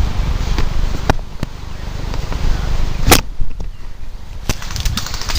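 A few scattered sharp snaps of airsoft gun shots, the loudest about three seconds in, over a low rumble on the microphone.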